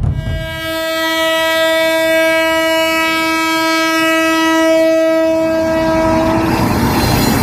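A locomotive horn sounding one long steady blast lasting about six seconds. Near the end the horn stops and the rumble of a moving train takes over.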